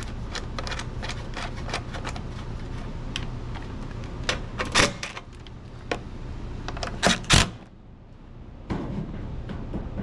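Bolts being threaded and tightened with a hand nut driver into a snowblower engine's plastic carburetor cover: scattered small clicks and ticks of metal on metal and plastic, with a few louder clatters about five and seven seconds in. A steady low hum runs underneath.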